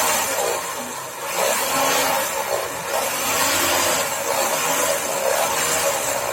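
Homemade drum sander, driven by a sewing-machine motor, running with a steady whirring noise; its level drops briefly about a second in, then holds.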